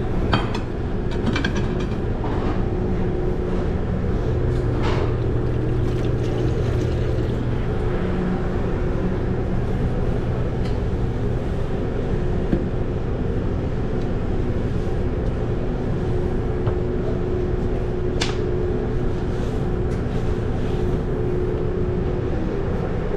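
Steady mechanical drone and hum of commercial kitchen equipment running, with a few sharp clinks and clatters of metal utensils and pans, the loudest about 18 seconds in.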